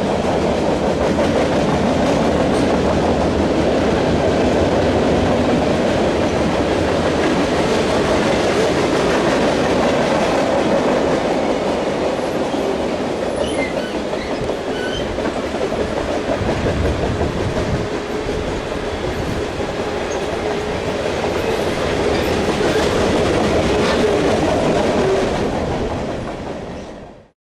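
Freight train cars rolling past, with a steady rumble and the clickety-clack of wheels over the rail joints; the sound cuts off suddenly near the end.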